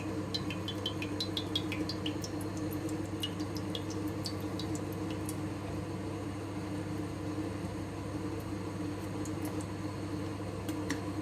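Vegetable oil heating in a hot pot: scattered light crackles and small high pings, thickest over the first five seconds and thinning out after that, over a steady low hum.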